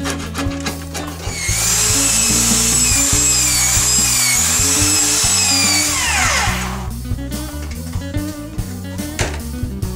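Electric angle grinder working on a rusty steel control arm: it runs with a high, slightly wavering whine for about five seconds, then is switched off and spins down. Background music with a steady beat plays throughout.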